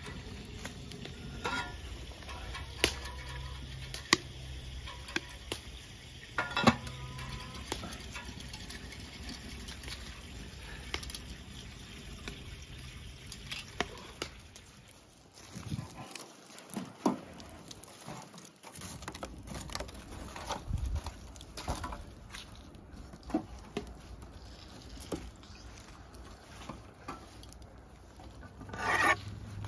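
Cooking work: scattered clicks and knocks of handling food and utensils over a low steady hum, with a louder knock about seven seconds in and a short quieter stretch about halfway through.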